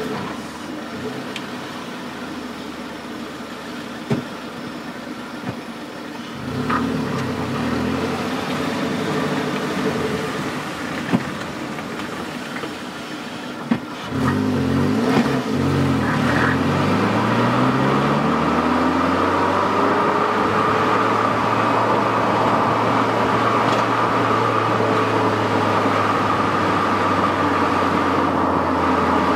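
Car exhaust recorded right at the tailpipe: the engine idles at first, swells briefly about six seconds in, then pulls away from about fourteen seconds in, rising in pitch as it accelerates, and settles into a steady cruise with an even drone for the last ten seconds. Little wind noise on the microphone.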